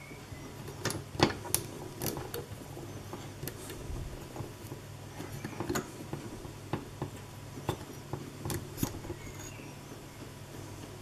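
Hands fumbling with a rubber band on a small engine's steel-rod frame and glass test-tube cylinder: irregular light clicks and knocks, the loudest about a second in, over a steady low hum.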